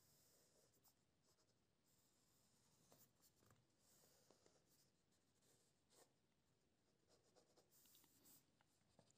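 Very faint pencil strokes scratching on paper while sketching, close to silence: short, irregular strokes.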